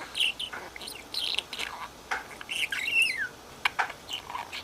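Pet budgerigar chattering in short chirps and squawks, with a falling whistle about three seconds in, and a few sharp clicks.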